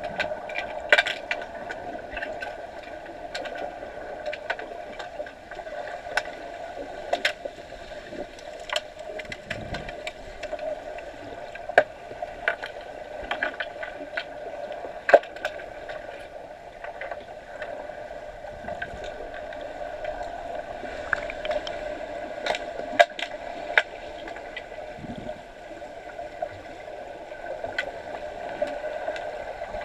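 Underwater sound of a pool during an underwater hockey game, heard through a waterproof camera housing: a steady hum with many irregular sharp clicks and knocks from the play.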